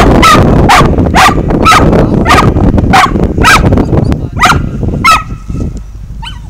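A dog barking repeatedly as it runs its laps, about two barks a second, stopping about five seconds in.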